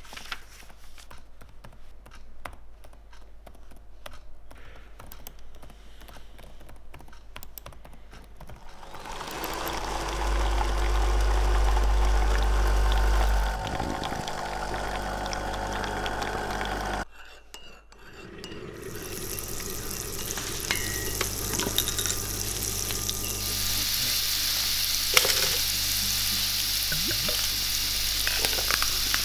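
A sequence of close-miked household sounds. Paper pages riffle with soft ticks, then liquid pours steadily into a ceramic mug. After a brief drop-out, a fizzing hiss of beer foam rises and holds, with one sharp knock near the end.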